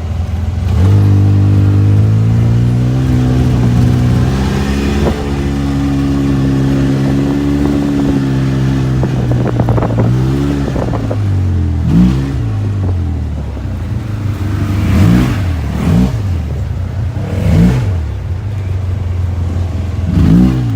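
Polaris RZR side-by-side's engine pulling away about a second in and running at speed. Later it speeds up and falls back several times as the vehicle is driven over rough farm ground.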